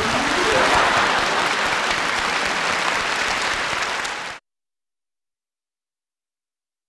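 Audience applauding, a dense steady clatter of clapping that cuts off suddenly about four seconds in.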